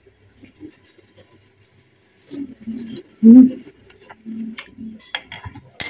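Close-miked eating sounds, with chewing and mouth noises. About two seconds in come several short, low, muffled bumps or hums, the loudest just past three seconds.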